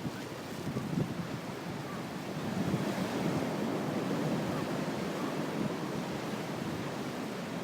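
Heavy surf from a big typhoon swell: a steady wash of breaking waves that builds to a loud surge about two and a half seconds in, then slowly eases. Wind buffets the microphone.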